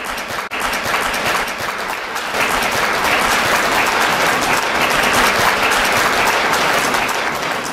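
Audience applauding: dense, steady clapping that builds up within the first second.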